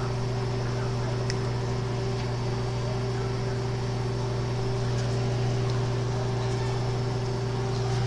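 Microwave oven running: a steady electrical hum over the whir of its fan, with one faint tick about a second in.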